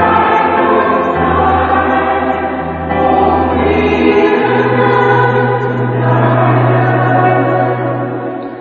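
Choir singing in harmony over steady held bass notes. The bass steps up to a higher note about four and a half seconds in.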